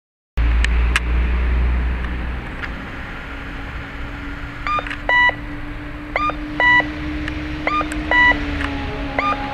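Rikuun Denki No. 21 audible pedestrian signal, the high-pitched type through its original speaker, playing its electronic two-note "cuckoo" call. The call starts about halfway through and repeats about every second and a half, sounding while the walk signal is green.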